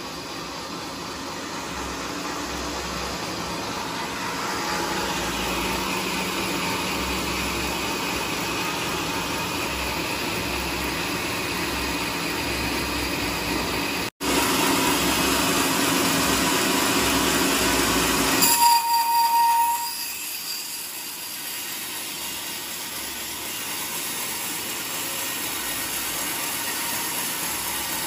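Sawmill machinery running steadily. About two-thirds of the way through there is a brief, louder high-pitched squeal, after which the machinery sounds quieter.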